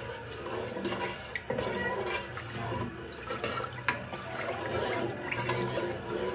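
Wooden spoon stirring thick, cooking custard in a steel saucepan: the thickening custard sloshes and slops around the pan, with a few light knocks of the spoon against the pan.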